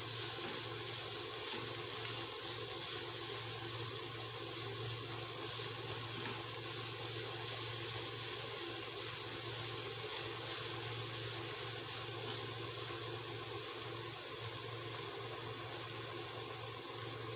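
Chopped beans, onion and green chilli sautéing in a kadai over a gas flame: a steady sizzling hiss, with a steady low hum underneath.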